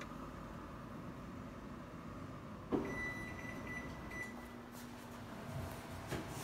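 Steady indoor room hum. About two and a half seconds in there is a sharp click, followed by a high electronic beep held for about a second and a half.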